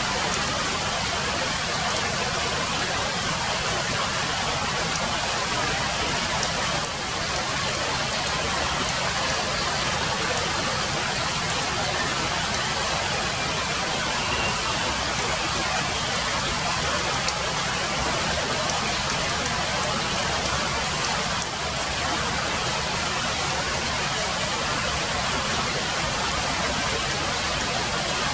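Steady, even hiss of rain falling, with no let-up.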